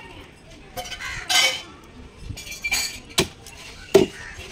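A blade chopping through a large katla fish on a wooden chopping block: handling and scraping at first, then two sharp chops in the second half.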